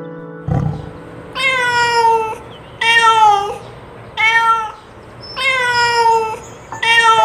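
A cat meowing five times in a row, evenly spaced about a second and a half apart, each meow dropping in pitch at its end. A low thump comes just before the first meow.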